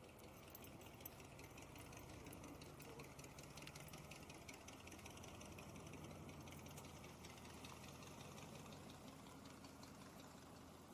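Faint, steady low hum of a distant pickup truck's engine as it drives off towing a boat trailer, barely above near silence.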